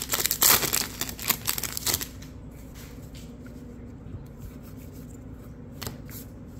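Foil wrapper of a baseball card pack crinkling and tearing as it is ripped open, for about the first two seconds; then the cards are handled quietly.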